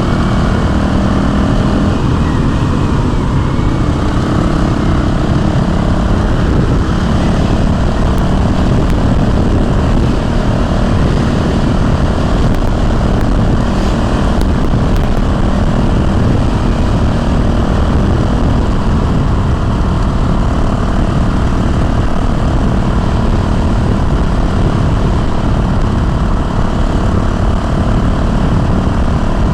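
Honda CRF450L's single-cylinder four-stroke engine running steadily under way, with the rush of wind from riding.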